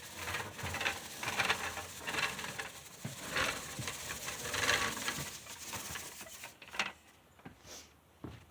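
Pivot push broom being worked, its rotating brush heads scratching over the ground in a rustling patter that swells and fades about once a second.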